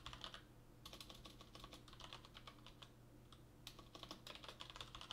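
Faint typing on a computer keyboard: short runs of quick keystrokes separated by pauses.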